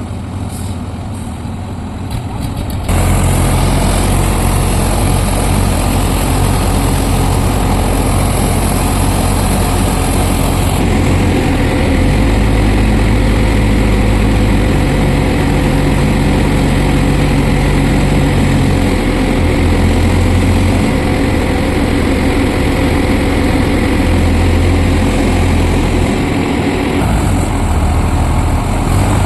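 Heavy diesel engine of a lifting machine running close by. It gets much louder about three seconds in, and its note shifts in pitch several times.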